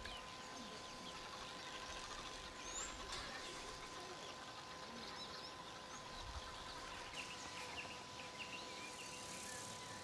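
Faint outdoor bush ambience: scattered short bird chirps over a low steady hiss, with a thin steady tone underneath.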